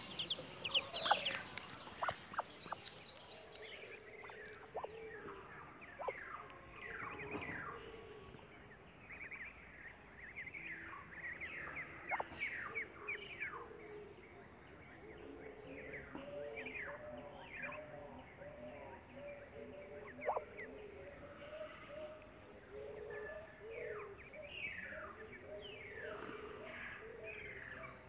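Ducklings peeping: many short, high notes that fall in pitch, repeated in quick runs, with softer low notes in places.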